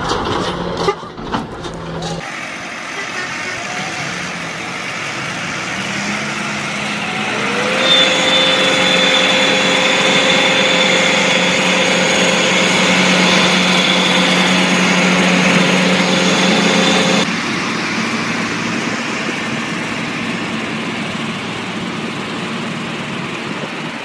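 Heavy diesel engines of tractors and a truck working hard as the tractors tow a loaded semi-truck. About seven seconds in, the engines rev up and then hold a steady pitch until the sound changes abruptly near seventeen seconds.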